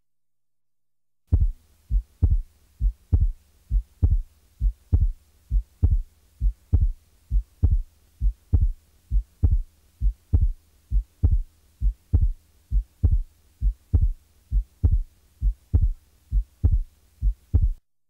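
Recorded heart sounds: a steady lub-dub rhythm of paired low thumps, a little over one beat a second, starting about a second in, over a faint steady hum.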